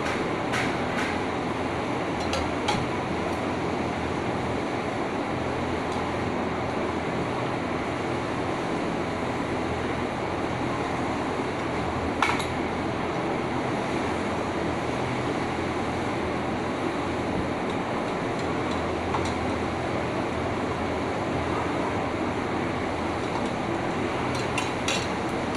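Steady background drone with a low hum, broken by a few light metallic clicks and clinks from tools and parts as a straight-knife cloth cutting machine is unbolted: two or three near the start, a sharper one about halfway, and a quick cluster near the end.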